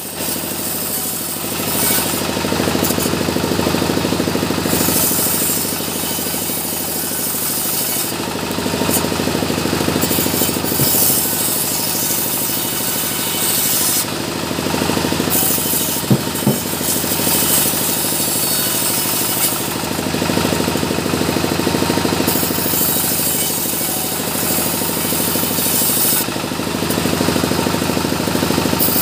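A powered sawmill saw running continuously while ripping small mahogany logs lengthwise into boards and battens. The sound turns harsher each time the blade is in the wood, over several cuts in a row, and a couple of sharp knocks come about halfway through.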